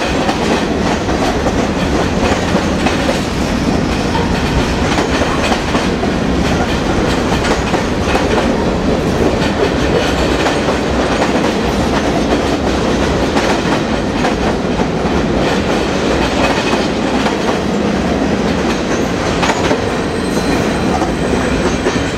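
Freight train cars (covered hoppers, boxcars and a centerbeam flatcar) rolling past close by, their steel wheels clacking steadily over the rail joints.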